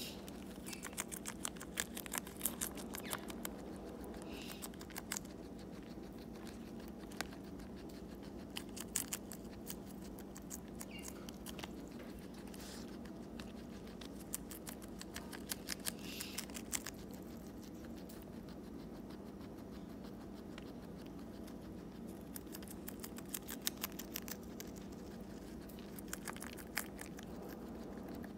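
A guinea pig chewing a romaine lettuce leaf: rapid, crisp crunching clicks in bursts with short pauses between them. A steady low hum runs underneath.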